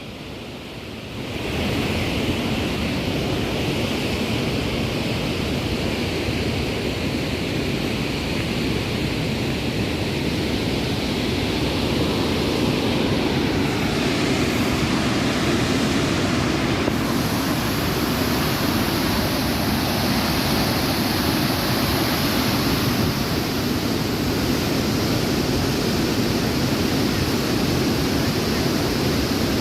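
Bow Falls on the Bow River: a deafening, steady rush of water pouring over the falls, a little quieter for about the first second.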